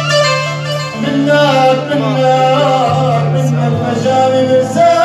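A man sings through a microphone and PA, his voice bending and ornamenting the melody over an instrumental accompaniment of held low notes that shift about a second in and again near three seconds in.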